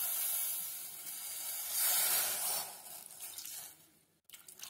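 Steady hiss of water heating in a steel pot around blocks of jaggery being melted into syrup. The hiss fades out about four seconds in.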